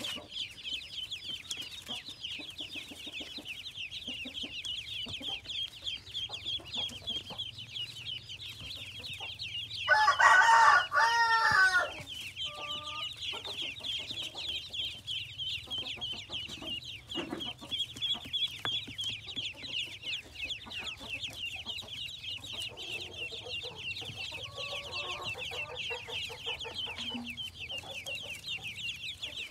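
A boxful of ducklings peeping without pause, a dense high chatter of many overlapping peeps. About ten seconds in, a much louder, lower animal call lasting about two seconds rises over them.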